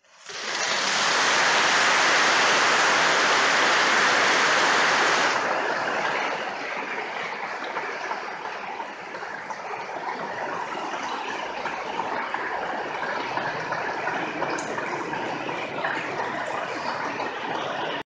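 Audience applauding. It is loudest for the first five seconds or so, then carries on a little softer and is cut off abruptly near the end.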